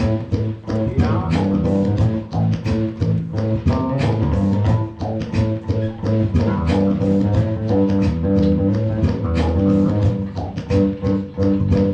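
Live band playing an instrumental passage: guitar and bass guitar over a steady beat, with no singing.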